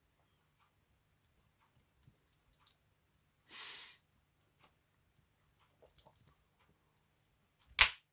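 Spring-loaded pliers of a Swiss Army knife being opened and worked: faint metal clicks, a brief scraping rustle about halfway, a few clicks near six seconds in, and one sharp click near the end as the tool snaps.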